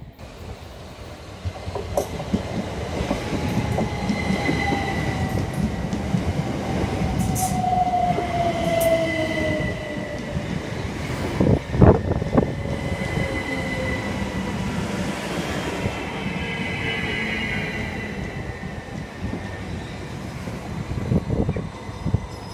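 Southern Class 377 Electrostar electric multiple unit running past at close range: steady wheel-on-rail rumble, with a motor whine that falls in pitch and a high whistling tone. A single loud clunk about twelve seconds in.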